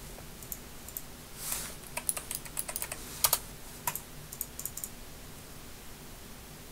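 Computer keyboard typing: a quick, irregular run of key clicks that lasts about four seconds and then stops.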